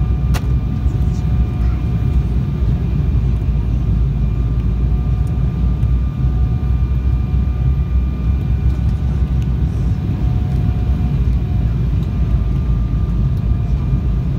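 Airliner cabin noise in flight: the steady low roar of the jet engines and airflow, with faint steady whining tones above it. A single sharp click about half a second in.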